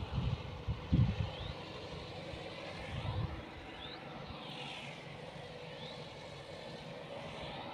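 Faint outdoor ambience. Low gusty rumbles come in the first few seconds, then a steady hiss, with a short high rising chirp every second or two.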